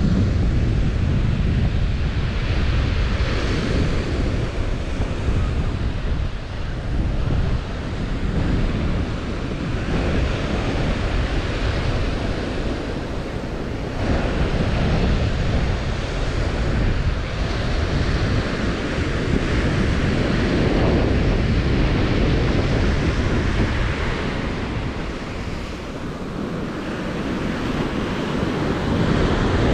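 Ocean surf breaking and washing up a sandy beach, swelling and easing as waves come in, with wind buffeting the microphone as a low rumble underneath.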